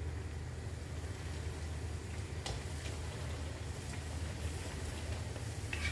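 Papadams frying in hot oil in a wok: a faint sizzle over a steady low hum, with a light click of a metal utensil against the wok about two and a half seconds in and again near the end.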